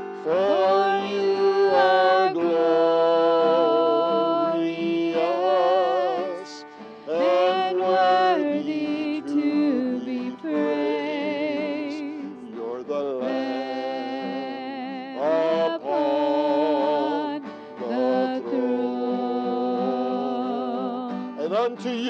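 Worship song sung by a man accompanying himself on acoustic guitar, in long held phrases with a wavering vibrato and short breaks between lines.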